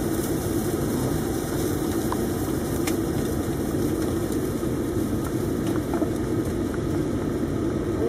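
A vehicle engine idling steadily.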